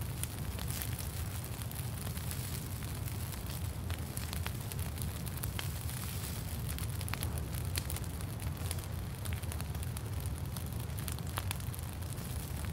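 Campfire crackling: scattered sharp pops and snaps over a steady low rumble.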